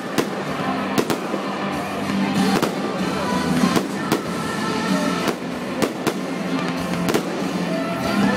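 Aerial firework shells bursting in a display: about eight sharp bangs, roughly one a second, over music playing throughout.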